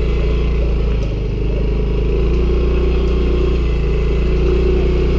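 Motor scooter engine running steadily as it is ridden, a loud low drone that dips slightly about a second in.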